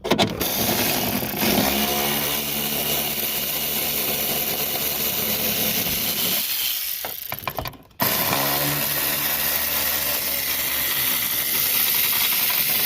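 Power drill driving a tail light mounting bolt, the motor running steadily for several seconds with its pitch wavering under load. It stops, then starts again about a second later and runs on.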